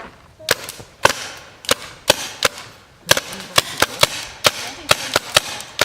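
Paintball gun firing a rapid string of sharp pops, a few shots about half a second apart, then from about three seconds in a faster volley of roughly four shots a second.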